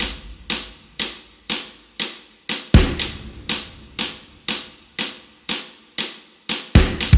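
Background music with a steady drum beat, about two hits a second; the bass drops away in the middle and comes back strongly near the end.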